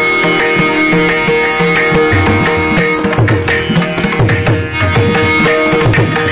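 Instrumental Indian classical music: a sustained melody over a steady drone, joined by strong hand-drum strokes about two seconds in.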